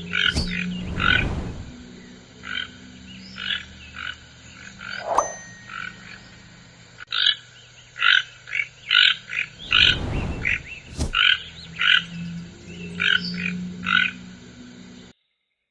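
A toucan calling: a series of short croaking notes, one or two a second, with a few low rustling thumps among them. The sound cuts off suddenly near the end.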